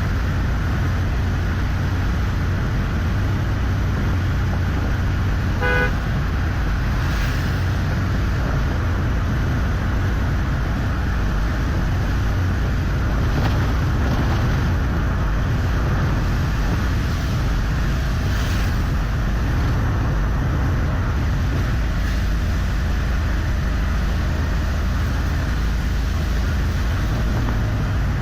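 Steady rumble of a vehicle driving on a highway, with one short horn toot about six seconds in.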